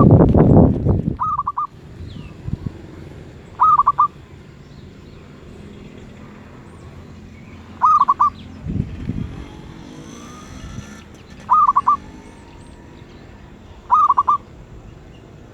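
Zebra dove (merbuk) cooing: short trilled coos repeated five times, every two to four seconds. The bird is of the medium-voiced class that merbuk keepers grade. A loud low noise fills the first second.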